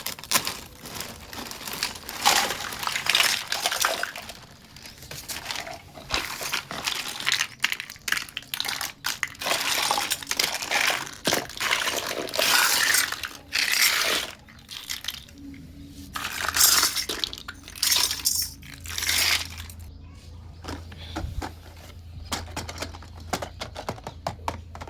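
Plastic toy packaging crinkling and rustling in irregular handled bursts, with small sharp clicks and taps of plastic pieces, quieter for the last few seconds.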